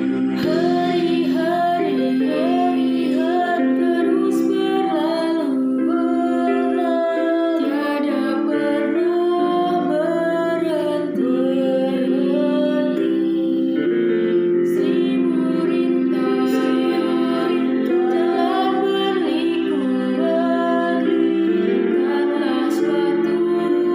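A woman singing a slow melody over steady instrumental accompaniment.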